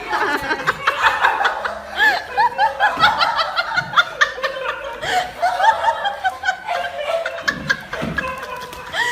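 People laughing: a long run of quick, high, rising-and-falling bursts.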